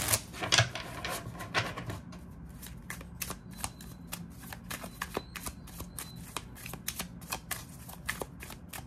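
A deck of oracle cards being shuffled by hand, overhand style: a quick run of soft card slaps and flicks, several a second, with a louder rush of cards right at the start.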